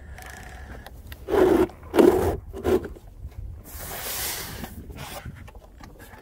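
Hull of an RC catamaran knocking and scraping against a wooden dock as it is lifted out of the water: three hollow knocks between one and three seconds in, then a short hissing scrape about four seconds in. A low wind rumble runs underneath.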